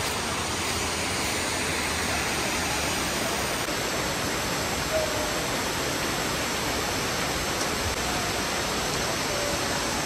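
Fast-flowing river water rushing steadily.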